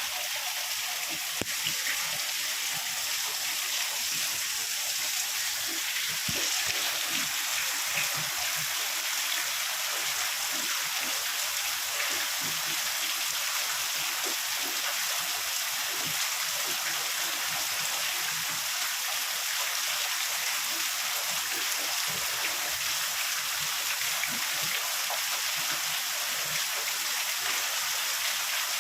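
Heavy rain falling: a steady hiss dense with the ticks of individual drops.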